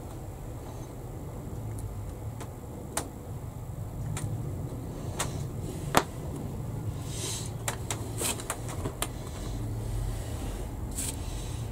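Small hobby tools, tweezers and a needle tool, tapping and clicking as they are picked up and laid down on a workbench, with a few brief rustles, over a steady low hum. The sharpest tap comes about six seconds in.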